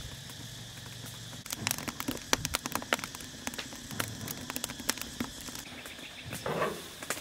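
Wood fire crackling in a metal stove: irregular sharp pops and snaps from burning wooden planks.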